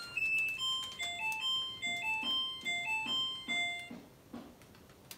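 Haier front-loading washing machine playing its end-of-cycle tune, a string of electronic beeps at changing pitches, signalling that the wash is finished. The tune stops about four seconds in, followed by a couple of faint taps.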